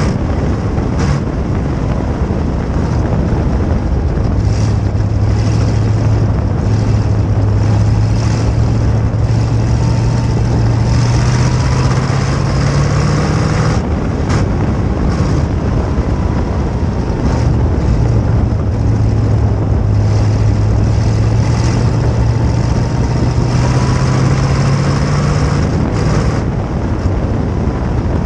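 Onboard sound of a sprint car's V8 engine running hard around a dirt oval, with heavy wind rush on the microphone. The engine note climbs slowly along each straight and drops twice, about halfway through and near the end, as the driver lifts for the turns.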